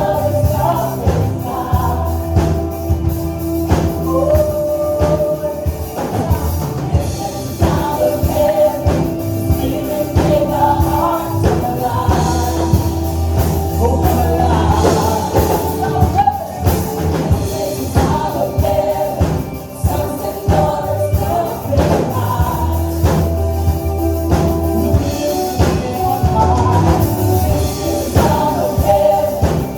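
Live contemporary worship band playing, with sung vocals over a steady bass line and drums.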